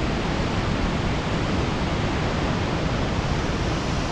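Waterfall's steady, loud rush of falling water heard close up, a dense even roar with a deep rumble underneath.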